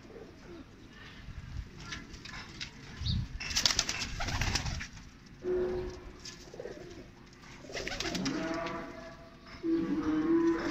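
Domestic pigeons cooing, in low drawn-out calls that come several times in the second half, with a loud scuffling burst about three and a half seconds in.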